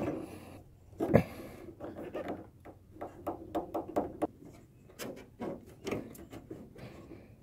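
Hands working a rubber washer-fluid hose onto a small plastic hose coupling: irregular clicks, rubbing and light knocks of rubber and plastic being pushed together, with one louder knock about a second in.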